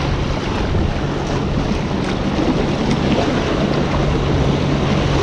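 Sea waves washing and breaking against the boulders of a rock breakwater, with wind buffeting the microphone and a faint steady low hum underneath.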